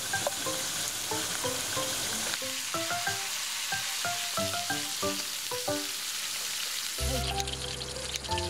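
Slices of pork belly sizzling in hot oil in a pan, a dense crackling hiss that thins out about seven seconds in. Light background music with short plucked notes plays over it.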